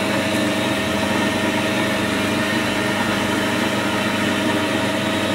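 Metal lathe running steadily as it turns a metal bar down to about 19 mm, the carriage fed by hand: an even machine hum with a few steady tones.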